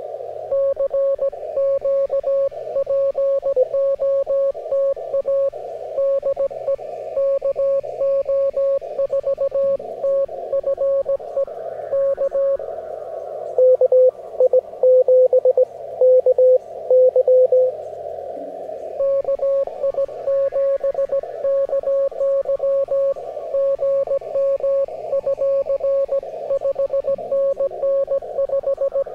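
Morse code (CW) signals received on an amateur radio transceiver: a steady keyed tone sends dots and dashes over the hiss of the receiver's narrow CW filter. It stops for a few seconds, and a second, louder signal at a slightly lower pitch sends a short burst. Then the first signal resumes sending.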